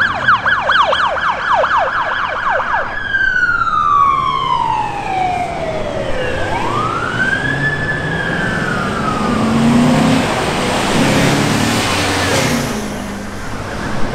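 Police car's electronic siren on a fast yelp for about three seconds, then switching to a slow wail that falls, rises and falls again. Vehicle engines and traffic rumble come up near the end.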